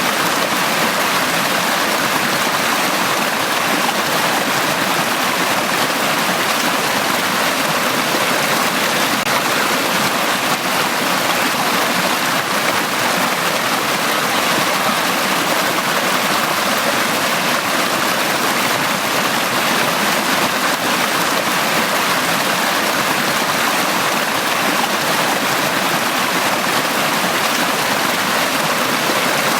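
Stream water flowing steadily in a valley, an even, unbroken sound of running water.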